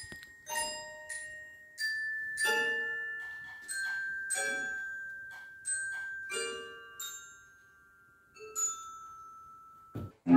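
Glockenspiel and toy piano playing sparse single struck notes, each ringing on and slowly fading, in a slow, quiet passage. A short low thump comes just before the end.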